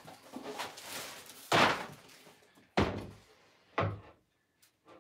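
Snowboards being leaned against a wall, knocking against it three times a little over a second apart. The first knock, about a second and a half in, is the loudest, and a rustle of handling comes before it.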